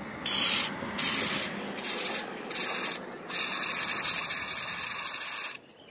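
Aerosol cable lube sprayed through its red extension straw into a motorcycle throttle cable's sheath. It hisses in four short squirts, then a longer spray of about two seconds that cuts off sharply.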